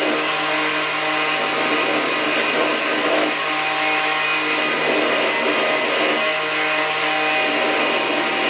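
Electric power tool running steadily, with a constant motor hum and a hiss over it.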